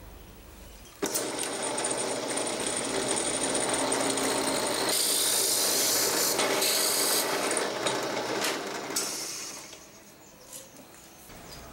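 Drill press boring into the end of a turned wooden tool handle. It starts suddenly about a second in, cuts steadily with a brighter, harsher stretch in the middle, and dies away near the end.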